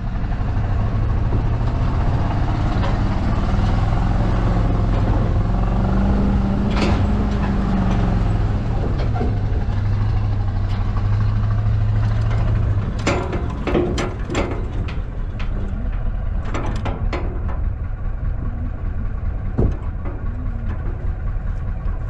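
A heavy vehicle engine running loudly, its pitch shifting now and then. About thirteen seconds in it gives way to the rattling and clanking of an empty wooden flatbed trailer being towed over a rough dirt road.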